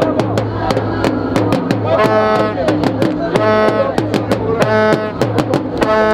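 Music with a quick, steady drumbeat and a brassy, many-toned phrase that repeats about every second and a quarter over a low drone.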